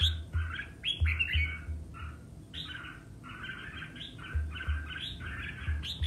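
Red-whiskered bulbul singing in quick runs of short, bright, chattering notes, phrase after phrase with hardly a pause, the excited fighting song of a male worked up to sing against a rival.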